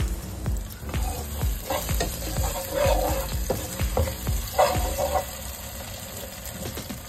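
Sliced shallots, garlic and tomato sizzling in hot oil in a non-stick wok. A spatula stirs them, scraping and tapping against the pan in quick repeated strokes.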